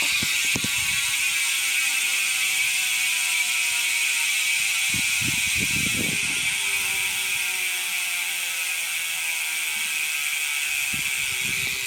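Loud ratcheting buzz of a new ARC rear hub's freehub as the bike freewheels, its pitch slowly falling as the wheel slows.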